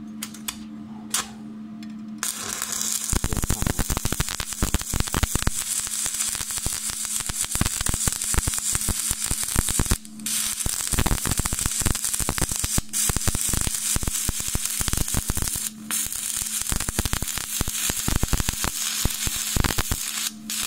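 Stick-welding arc from a 3.25 mm electrode at 140 A on 8 mm flat steel, crackling and sputtering continuously once the arc is struck about two seconds in. The crackle breaks off briefly about halfway and picks up again at once, over a steady electrical hum.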